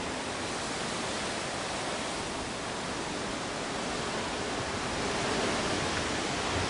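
Steady rushing hiss of wind, swelling slightly near the end.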